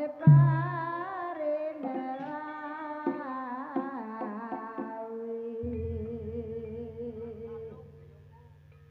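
Javanese gamelan music for a barongan dance: a loud drum stroke just after the start, then a wavering melody that settles into a long held note, with a low steady hum coming in about halfway. It fades near the end.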